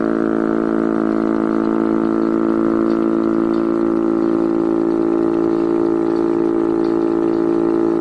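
Chrysler-Bell air raid siren, driven by its Hemi V8 engine, running at a steady speed: a loud, unbroken drone that holds one pitch, with no rise or fall.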